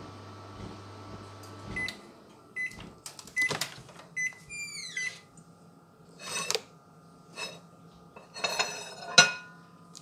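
Microwave oven running with a steady hum that cuts off about two seconds in, followed by about five short single-pitch beeps marking the end of the heating cycle. Knocks and clatters follow as the microwave and the mug inside are handled.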